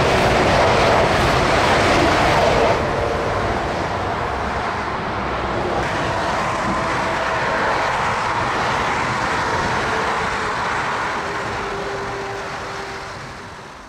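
ICE high-speed train passing close beside motorway traffic, a loud rushing noise. About three seconds in the sound cuts to a quieter, steady rush of motorway traffic with a train farther off, fading near the end.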